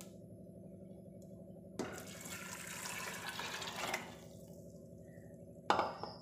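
Water poured from a jug into a pressure cooker over soaked black-eyed peas, splashing for about two seconds. A short knock follows near the end.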